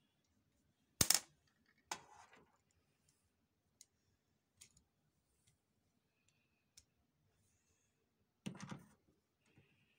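Scattered clicks and knocks of hard plastic and metal parts being handled on a copier's scanner unit. A sharp loud click comes about a second in and a rattling knock just after it. A few faint ticks follow, then a short clatter near the end.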